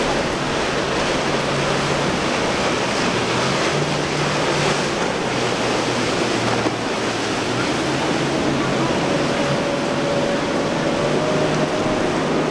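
Outboard-powered boat running fast through choppy inlet water: a steady rush of waves, wake and spray over a low engine drone that shifts in pitch now and then. A faint higher steady whine comes in during the last few seconds.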